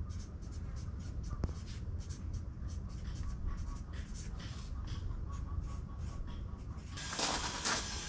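Pen writing on a paper notepad: quick, scratchy strokes, several a second, over a low steady rumble. About seven seconds in, a louder rushing noise takes over.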